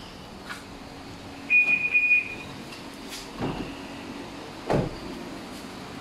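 Aftermarket car alarm on a Toyota Vios giving a high-pitched confirmation beep, under a second long, about a second and a half in, in response to the key fob. Two short dull thumps follow, about a second apart.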